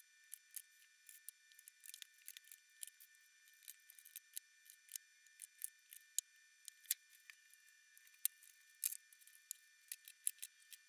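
Cleco fasteners being set with Cleco pliers into the holes of an aluminium aircraft skin and its ribs and spar: faint, irregular small metallic clicks, sometimes several in quick succession.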